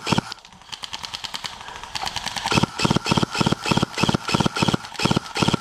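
Airsoft guns firing rapid bursts. Fainter fire comes in the first second or so, then loud bursts of quick shots from a nearby gun from about two and a half seconds in.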